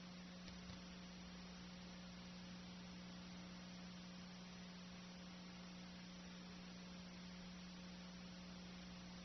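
Near silence: a steady low electrical hum with faint hiss from the videotape transfer, and a faint click just after the start.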